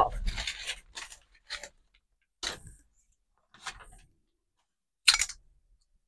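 Crumpled brown kraft packing paper rustling and crinkling as it is handled and pulled away, in a series of short separate crackles.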